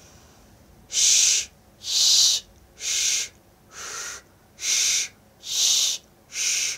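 A man saying a run of seven voiceless "sh" hisses, about one a second. He is sounding the alveolo-palatal, palato-alveolar and retroflex fricatives by raising and lowering his tongue, so some hisses are higher and more trebly and others deeper and less trebly.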